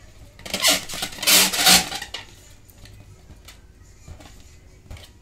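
Hands grabbing and rubbing inflated latex balloons: a loud burst of rubbing from about half a second to two seconds in, then only faint handling clicks.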